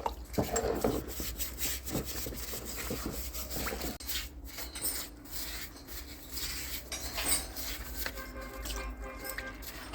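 Metal parts being worked by hand with tools: irregular scraping and rubbing with scattered knocks and clicks, as a tightly wound part is worked loose.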